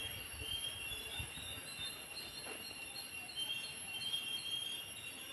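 Insects chirring steadily in the garden vegetation, a high-pitched drone made of several tones, some of them pulsing.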